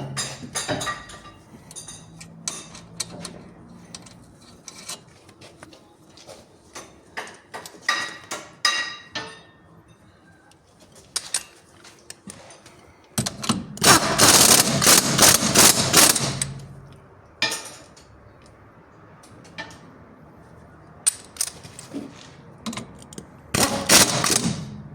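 Hand tools clicking and clinking against steel car suspension parts. About halfway through comes a loud rasping burst of about three seconds, and a shorter one near the end.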